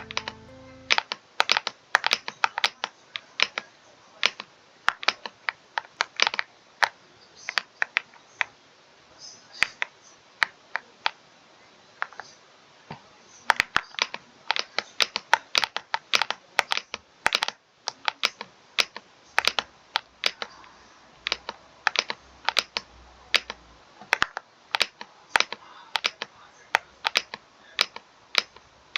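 Typing on a computer keyboard: irregular runs of sharp key clicks broken by short pauses.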